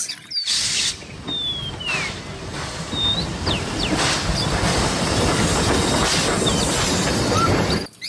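Steam locomotive running, a steady rumble and hiss with a few short high squeal-like chirps over it. It starts suddenly about half a second in and cuts off just before the end.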